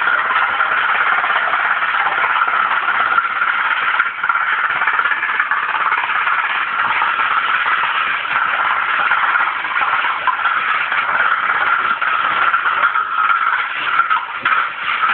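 Windmill rotor spinning fast in strong wind: a steady whirring with a constant high hum.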